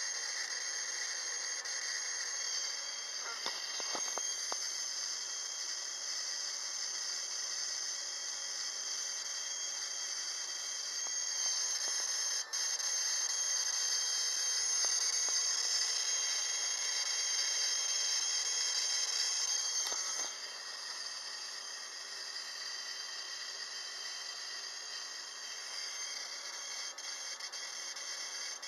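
12-volt ignition coil being fired continuously by a MOSFET driver circuit, giving a steady high-pitched hissing buzz. It grows a little louder partway through and drops back about two-thirds of the way in, with a few faint clicks near the start.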